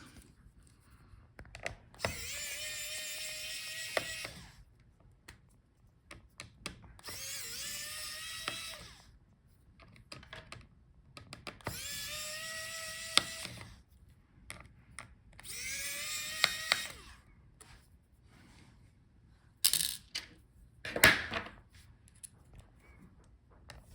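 Small electric screwdriver motor running in four separate bursts of about two seconds each. Each burst spins up with a short rise in pitch and then holds steady, as the screws are backed out. Two sharp clicks come near the end.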